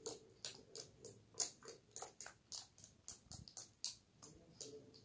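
Jelly slime being squeezed and pressed by hand, making a run of sharp, irregular clicking pops, about three a second.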